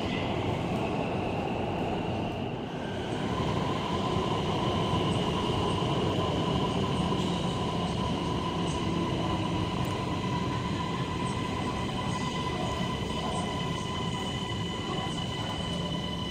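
Chengdu Metro Line 17 train in the station: a continuous low rumble with steady high electric whining tones over it.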